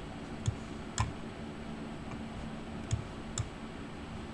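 Four sharp clicks at a computer, spread unevenly across a few seconds, over a faint steady electrical hum.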